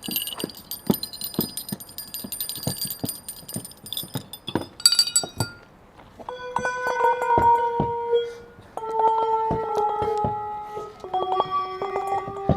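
Bells struck in quick succession with a mallet. For the first few seconds there are rapid strikes on small, high-pitched bells, then a louder strike about five seconds in. After that, larger bells ring on with long tones, each lower than the one before.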